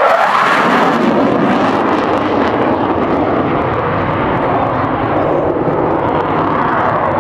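Douglas A-4 Skyhawk jet passing and climbing away: loud, steady jet-engine noise that drops lower in pitch after the first second as the jet moves off.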